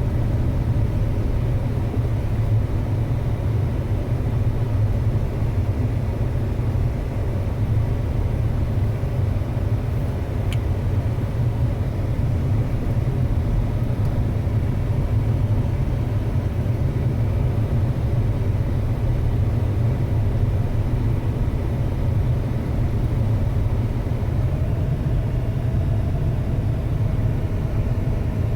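Steady low rumble of a vehicle on the move, its engine and road noise holding even throughout.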